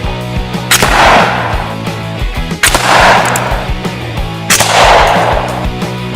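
Background music with steady low tones, broken three times by a sudden loud burst of noise that fades over about a second, roughly every two seconds.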